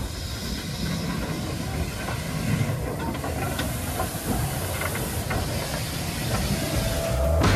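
Small saddle-tank steam locomotive moving slowly past at close range, with steam hissing and a few clicks of its wheels on the rails. The hiss grows louder about halfway through.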